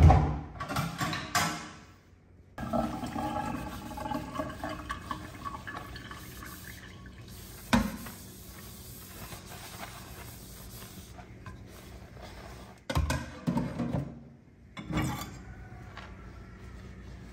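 Washing up at a stainless steel kitchen sink: water running and splashing while a plastic jug and a bowl are scrubbed with a soapy sponge. There are knocks of dishware against the sink, a sharp one about eight seconds in and a cluster near the end.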